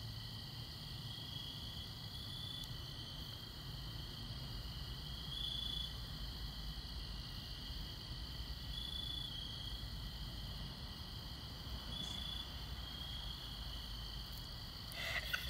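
Crickets trilling steadily on a summer night, with a louder insect call repeating every three seconds or so.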